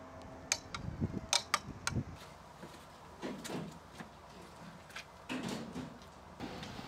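A scatter of sharp clicks and knocks, several close together from about half a second to two seconds in and a few more around five seconds, with some dull low thuds between them.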